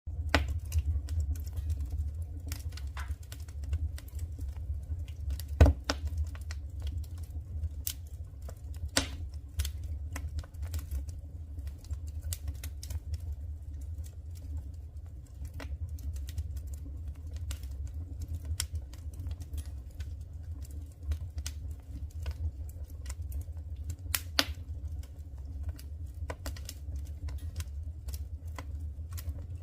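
Firewood burning in a wood stove, crackling with irregular sharp snaps and a couple of louder pops, over a steady low hum.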